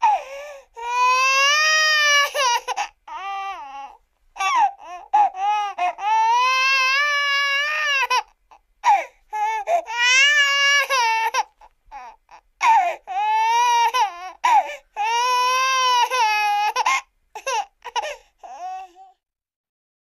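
Cartoon little girl's crying sound effect: a high-pitched voice wailing in long sobs that waver up and down, broken by short catches, until it stops about 19 seconds in.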